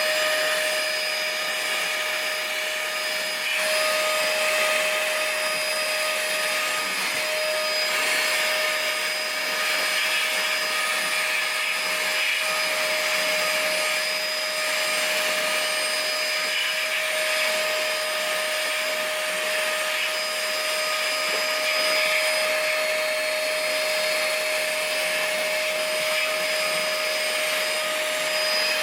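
Shop vac running steadily as its nozzle sweeps dust and dirt off a pinball playfield, a continuous whine and rush of air that swells and eases a little as the nozzle moves.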